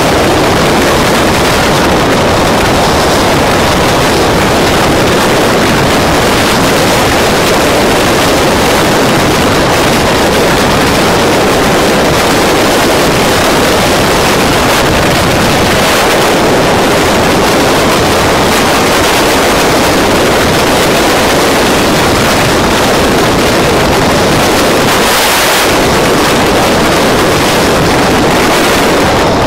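Loud, steady wind rush on the microphone of a camera riding on a moving motorcycle, with the bike's engine and the surrounding traffic buried in the noise.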